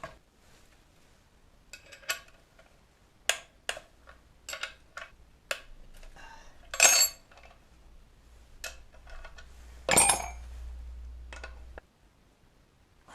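Metal hand tools and parts clinking and knocking: about a dozen separate strikes, the loudest two about 7 and 10 seconds in, over a low hum that starts about halfway and stops near the end.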